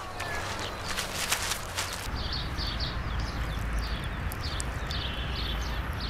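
A plastic paint roller tray set down and handled with a few sharp clicks, then thick yellow paint poured from a can into the tray, over a low steady rumble. Short high chirps repeat about twice a second.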